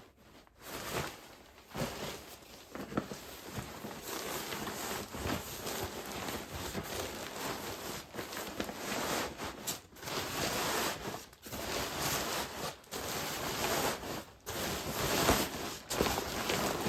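Fabric rustling and crinkling as a bivy sack stuffed with a sleeping bag and pillow is pushed down into a frameless backpack, in irregular bursts with short pauses.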